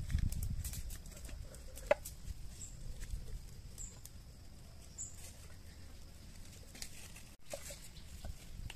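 Knife scoring a whole raw chicken on a wooden cutting board: soft cutting and handling sounds, with one sharp knock of the blade on the board about two seconds in.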